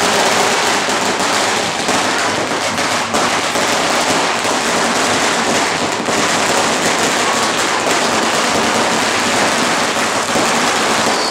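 Many firecrackers going off in rapid succession, a dense, unbroken crackle of small bangs.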